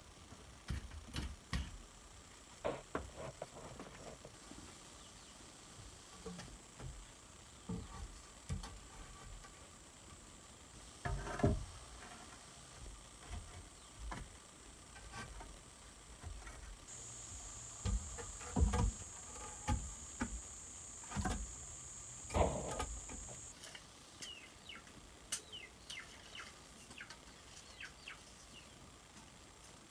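Scattered knocks and thuds of hand building work, with a few heavier thuds in the second half. A steady high-pitched whine runs through the middle, grows louder past the halfway point and cuts off suddenly about three quarters of the way in.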